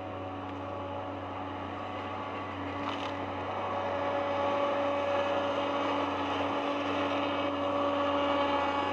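Engine of a heavy forestry machine running steadily with an even hum, getting somewhat louder about four seconds in.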